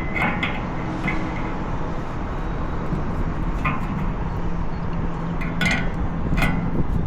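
A few sharp metallic clinks, about five spread through, of hand tools against the rooftop unit's sheet-metal parts, over a steady background rumble.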